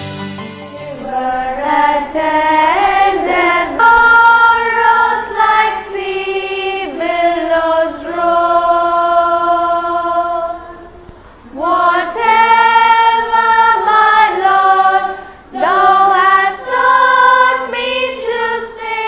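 A group of schoolgirls singing a song together. The phrases are broken by short pauses about eleven and fifteen seconds in, and a long held note comes just before the first pause.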